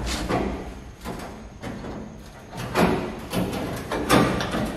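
A newly bent sheet-steel rail being fitted into place under a van's door sill: a handful of metallic knocks and scrapes against the body and floor, the loudest about three and four seconds in.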